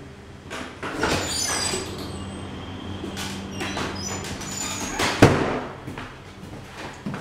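A door being opened with squeaking and rattling, then shut with one sharp bang about five seconds in. A steady low hum runs underneath.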